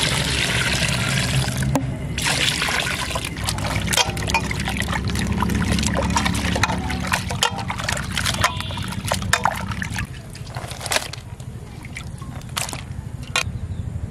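Water pouring into a steel bowl of cut rohu fish pieces for about the first two seconds, then repeated splashing and sloshing as the pieces are rubbed clean by hand in the water. The splashes thin out and get quieter after about ten seconds.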